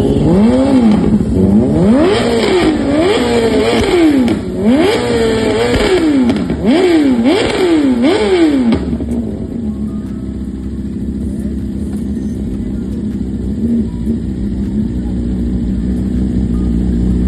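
BMW S1000RR inline-four engine being revved again and again, its pitch climbing and dropping in quick blips for about nine seconds, then settling to a steady lower idle.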